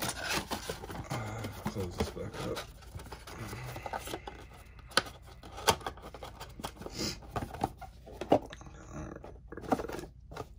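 A sealed trading-card blaster box being handled and opened by hand: crinkling of plastic wrap and cardboard, with scrapes and many scattered sharp clicks.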